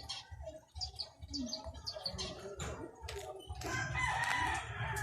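A rooster crowing once, a long pitched call starting about three and a half seconds in, after a run of short, high bird chirps.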